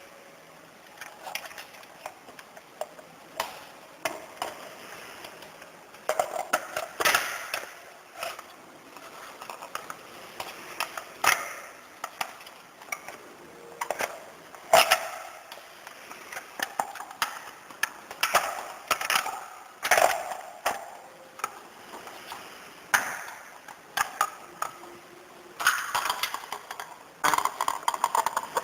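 Hard parts being handled, snapped and fitted together during disassembly and assembly: irregular clicks, knocks and clinks, with short scraping and rattling stretches and a busier cluster near the end.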